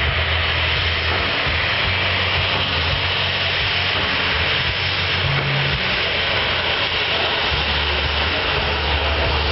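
Airliner engines and airflow heard from inside the passenger cabin: a loud, steady hiss with a low rumble that comes and goes.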